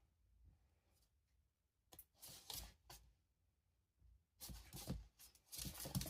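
Faint rustling and scratching in short spells, about two seconds in and again from about four and a half seconds, with a few small clicks.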